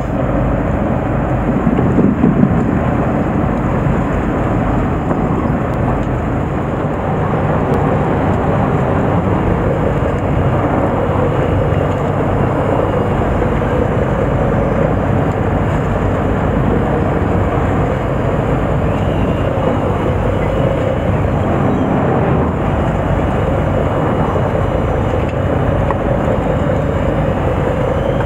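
Steady rumble of a fishing boat's engine running at low speed, mixed with wind and water noise, with a faint steady hum under it.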